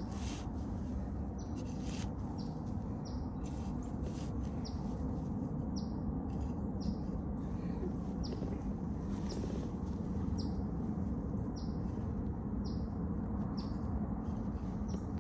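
A bird chirping over and over, short sharp falling notes about once a second, over a steady low background rumble. A few brief rustles come near the start.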